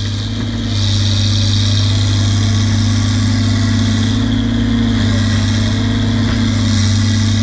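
Bulldozer's diesel engine running hard under load as it pushes a tree over, a steady drone that gets louder about a second in.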